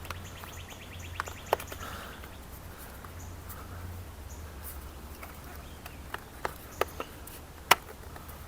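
Scattered light clicks and taps from a plastic motorcycle cover piece being worked and clipped into place, the loudest near the end, over a steady low hum with faint high chirps.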